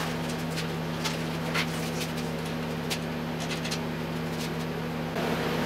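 Steady low room hum, with a few light clicks of small hardware as nuts are fitted by hand onto screws through a plywood gantry. Near the end the background hum grows louder.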